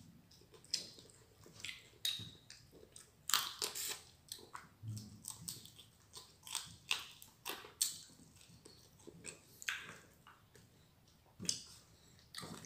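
Close-miked chewing and biting of food, with irregular crunches and clicks; the loudest crunching comes about three and a half seconds in.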